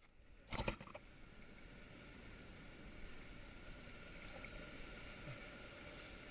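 Faint, steady water noise around a kayak drifting through kelp, with a short louder noise about half a second in.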